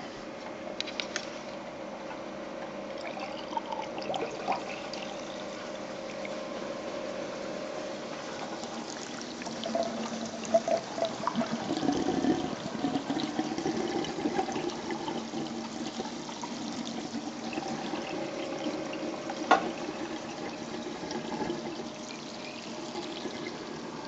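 Water rushing and gurgling down a DIY PVC aquarium overflow, a steady toilet-like flushing with a few humming tones and a louder surge about halfway through. The bigger 1260 pump pushes so much water into the overflow that it makes waterfall noises.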